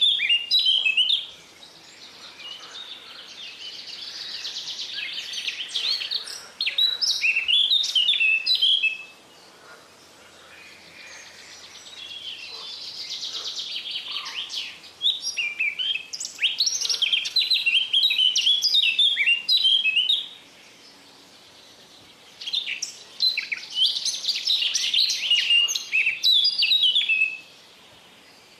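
Pet budgerigars chattering and warbling: fast, scratchy chirps and trills in loud bouts, with quieter chatter between them.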